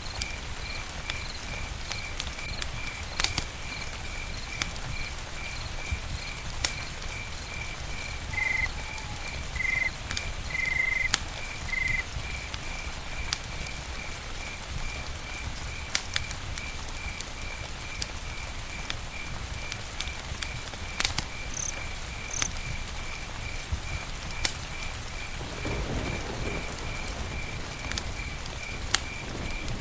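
Campfire crackling, with irregular sharp pops over a steady low rush. Behind it an insect, cricket-like, chirps steadily about three times a second, and a few short bird chirps come a little before the middle.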